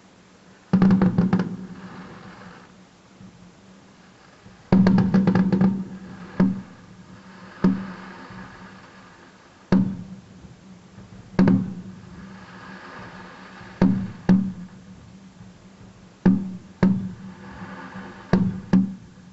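Aerial fireworks exploding. A rapid volley of bangs comes about a second in and another about five seconds in, followed by single loud booms every second or two.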